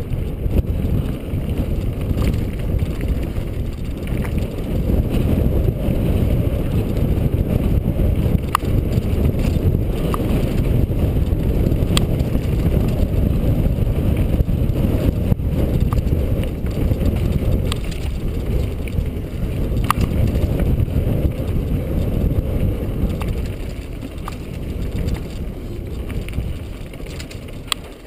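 Mountain bike ride heard through a GoPro action camera's microphone: a steady, heavy wind and tyre rumble from riding on dirt and rock singletrack, with scattered sharp clicks.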